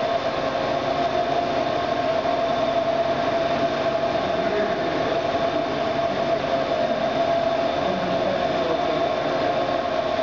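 Nicco NSG-74S surface grinder running: a steady mechanical drone with a held whining tone that does not change.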